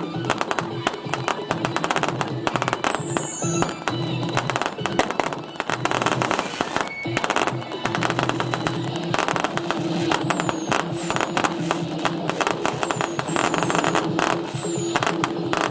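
A fireworks display going off in a dense, continuous run of rapid crackles and pops, with a few short high whistles that fall in pitch. Music plays underneath.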